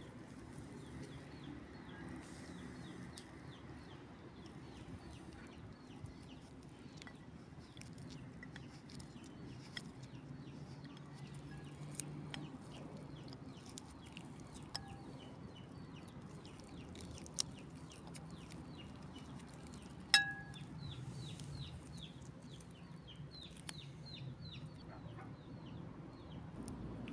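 Chickens and other birds calling over and over, with a steady low outdoor hum. A knife slicing boiled carrot on a ceramic plate gives scattered light clicks, and a sharp ringing clink of the blade on the plate about 20 seconds in.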